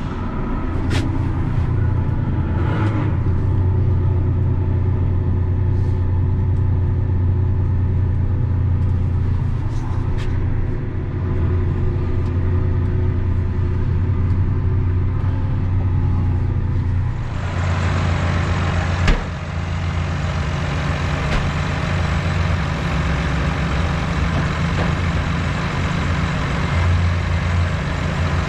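Large diesel engine running steadily at a low, even speed. A hiss of added noise joins about 17 seconds in, and there is a single sharp click about 19 seconds in.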